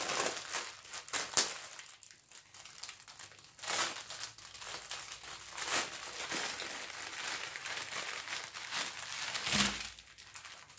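Thin clear plastic packaging crinkling in irregular bursts as a large bag is handled and opened and small plastic sachets of diamond-painting drills are tipped out of it.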